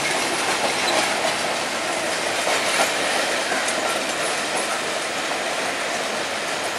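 Sri Lanka Railways passenger coaches rolling through a yard of points and crossings: a steady rumble of wheels on rails with some clatter over the rail joints.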